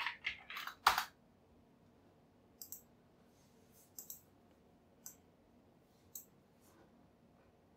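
A few quick keystrokes on a computer keyboard in the first second, then scattered computer mouse clicks, some in quick pairs.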